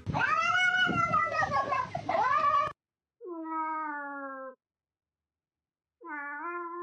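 Cat meowing: a loud, wavering yowl over the first two and a half seconds, then two separate drawn-out meows with silence between them.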